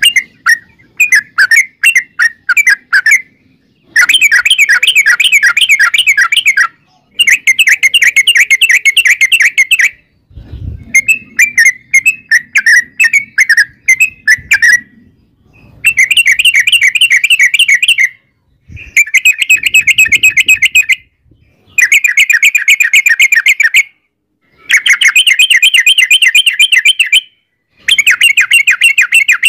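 Yellow-vented bulbul (trucukan) singing long runs of rapid repeated chattering notes. Each run lasts two to three seconds, with short pauses between them.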